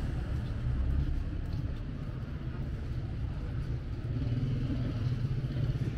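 Busy city street ambience: a steady low rumble of traffic and motorbike engines.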